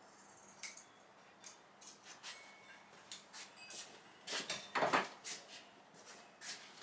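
Sharp scissors cutting through thick velour acoustic carpet: a run of short, irregular snips and clicks, loudest in a cluster about four to five seconds in.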